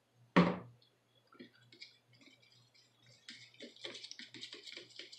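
A mayonnaise jar set down on the countertop with a single thud about half a second in. From about three seconds in, a spoon stirring mayonnaise into salsa in a glass bowl, with quick light clicks and scrapes against the glass.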